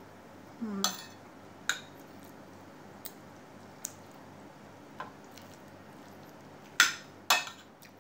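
Metal spoon and fork clinking and scraping against a ceramic plate while eating: scattered single clinks, about seven of them, with the two loudest near the end.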